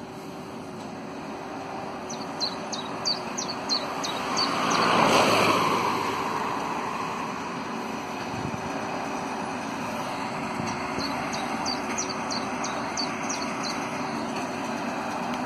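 New Holland T7 tractor running steadily while pulling a New Holland BigBaler large square baler along a hay windrow, a constant engine and machinery hum. A rushing noise swells and fades about five seconds in, and a bird chirps in quick runs twice.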